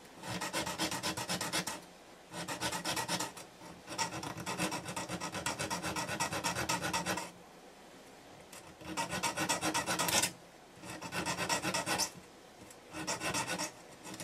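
Small round rasp filing the corners of square window openings in a thin metal sheet clamped in a vise: rapid back-and-forth scraping strokes in about six runs of one to three seconds, with short pauses between them.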